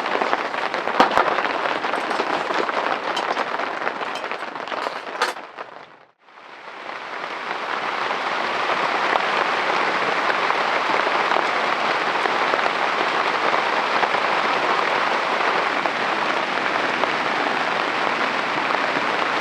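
Heavy rain falling, with scattered sharp drop hits in the first few seconds. The sound fades out about six seconds in and fades back in as steady rain.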